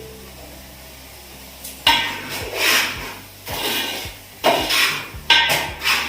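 Spoon stirring and scraping in a cooking pan, a run of short scraping and knocking strokes starting about two seconds in.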